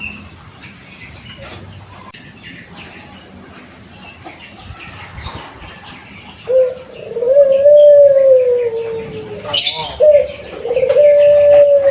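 Young puter pelung dove cooing: after a quiet stretch, about halfway in comes a long drawn-out coo that rises and then slowly falls, a brief sharp rustle or click, then another long coo near the end.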